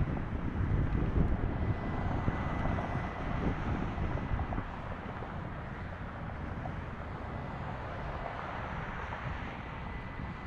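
Boeing 777-200LR's twin GE90 turbofans at takeoff power, heard from a distance as a deep, noisy rumble. The rumble is loudest in the first few seconds and eases off a little after that.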